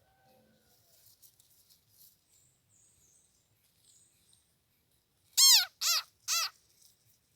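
Three loud animal calls in quick succession, each rising then falling in pitch, a little over five seconds in, with faint high chirps before them.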